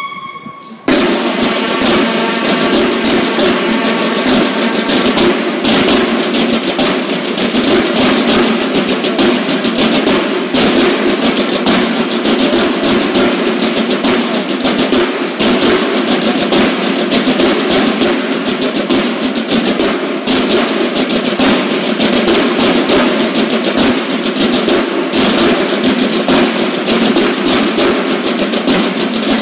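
Marching snare drums of a Mexican banda de guerra playing a fast, dense drum cadence with rolls, starting about a second in. The playing is broken by short pauses about every five seconds.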